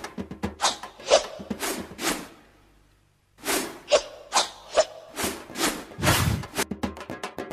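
Drum strikes at an uneven pace of about two a second, broken about two and a half seconds in by a short dead silence before the beating resumes.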